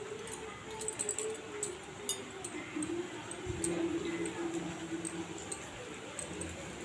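Batter-coated raw banana slices deep-frying in hot oil, sizzling with a steady hiss and many small, irregular crackles; a slotted metal spoon stirs them in the oil.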